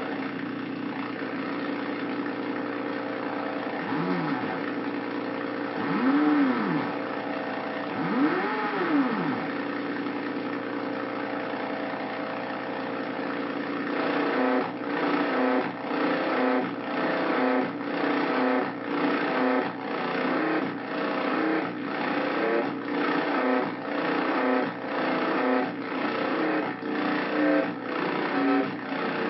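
Hand-made Arduino drone/noise synthesizer holding a dense, buzzy drone of several steady tones. Three pitch sweeps rise and fall over it in the first ten seconds. About halfway through it changes to a pulsing rhythm of roughly one beat a second.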